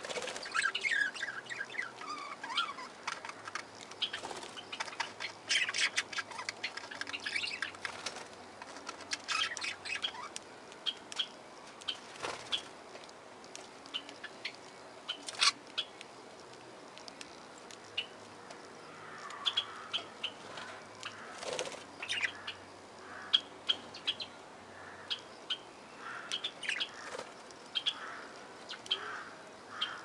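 A flock of budgerigars chattering: many short chirps and warbling calls, busiest in the first ten seconds and sparser after, with wing flapping at the start.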